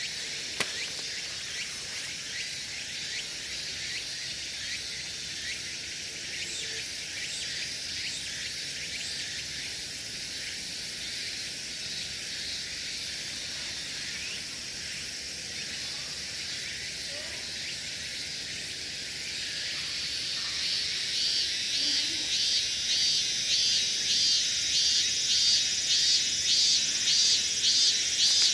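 Insects calling in a steady high-pitched chorus. About two-thirds of the way in, a louder insect song starts pulsing in a regular rhythm, about two pulses a second, and grows louder.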